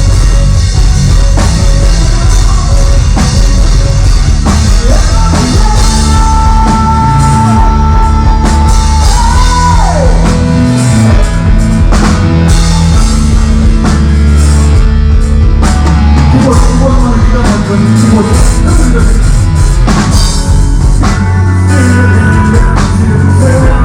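Loud rock music with drum kit, bass and electric guitar playing continuously. A high lead note is held for a few seconds near the middle and then slides down.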